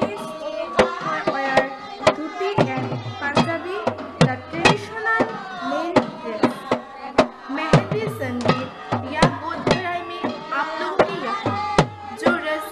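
Two-headed barrel drum played by hand in a lively folk-dance rhythm, about two to three strokes a second, its deep strokes dropping in pitch after each hit, with voices over it.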